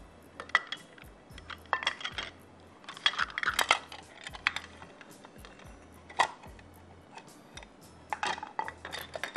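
Scattered light clinks and taps of kitchen utensils and a measuring cup against a mixing bowl while flour is added to batter, with one sharper clink about six seconds in.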